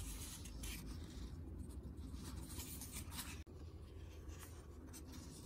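Faint rustling and rubbing of a hand on the paper pages of a picture book as a page is lifted to turn it, over a steady low hum.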